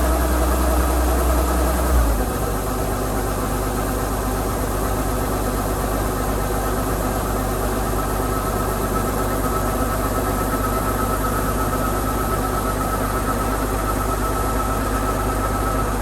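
Kubota DC-105X combine harvester's diesel engine running steadily. Its note shifts about two seconds in, and a steady high whine joins from about eight seconds in.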